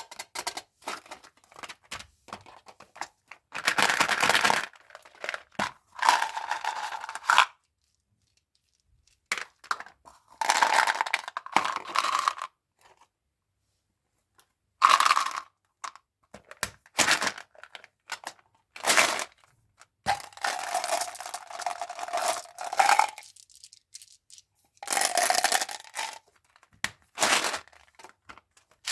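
Plastic candy wrappers being crinkled and torn open, in bursts of a second or two with short silent pauses between them.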